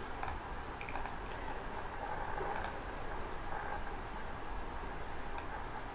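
A few scattered sharp computer clicks, about four over several seconds, as the screen is switched between pages, over a faint steady hiss.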